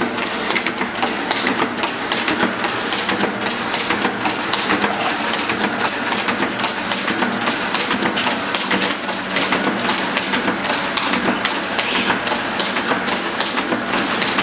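EP 21F desktop paper folding machine running, its rollers drawing sheets in and folding them in a steady, rapid clatter.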